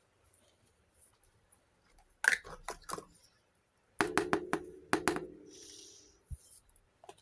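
Small hard miniature toy kitchen pieces being handled and set down: a few light clicks about two seconds in, then a quick run of taps about four seconds in, with a brief ringing tone that fades away.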